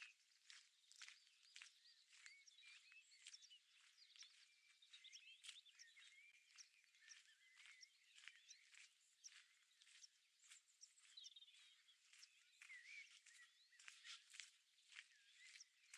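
Faint birdsong, many small birds chirping and warbling together, with soft crunching footsteps on a trail at walking pace, about one or two steps a second.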